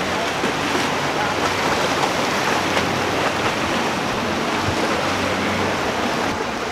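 Steady rush of surf and churned water with the low, even drone of a center-console boat's outboard engines passing through the inlet.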